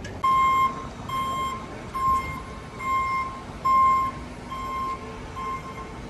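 Vehicle reversing alarm beeping steadily, a single high tone a little more than once a second, growing fainter after about four seconds.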